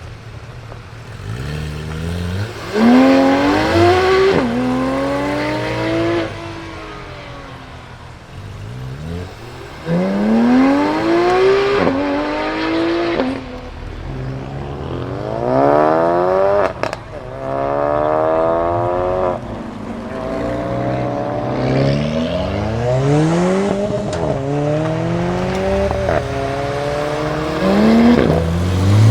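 Supercar engines accelerating hard away one after another, each revving up through the gears. The pitch climbs steeply and drops at every upshift, across several runs.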